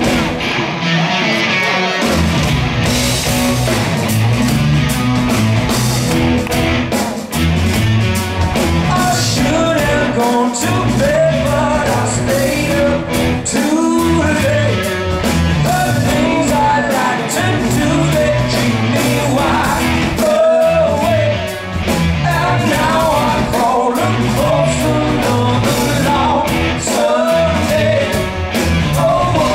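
Rock band playing live: a male lead singer over electric guitar, bass and drums, with the bass and drums coming in about two seconds in.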